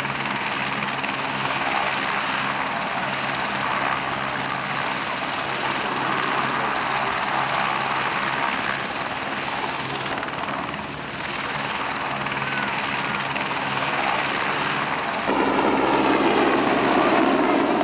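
Rescue helicopter's rotor and turbine engine running steadily, becoming louder and closer about fifteen seconds in as it flies low overhead.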